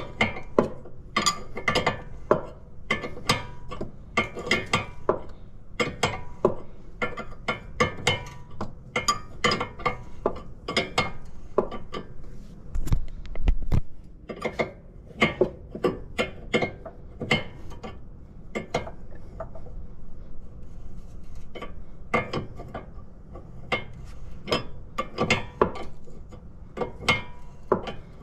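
Repeated sharp metallic clicks and clinks of a 19 mm wrench working the outer tie rod end's locking nut tight, one to three a second with short lulls, and a dull thump about thirteen seconds in.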